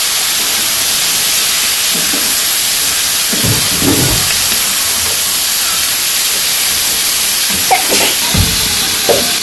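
Freshly washed cauliflower, potato and other vegetables sizzling in hot oil in a wok, a loud, steady hiss of frying and steam. A wooden spatula stirs them, with a few low knocks and scrapes about a third of the way in and again near the end.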